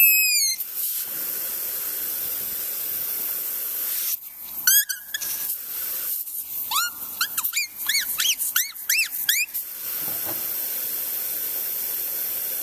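Steady high hiss, with two runs of short, high squeaky chirps that rise and fall in pitch: a few about five seconds in, then about ten more between seven and nine and a half seconds in.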